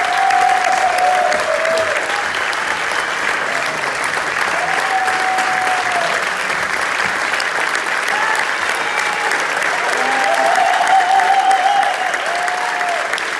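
Theatre audience applauding steadily throughout, with a few long cries from voices in the crowd rising above the clapping now and then.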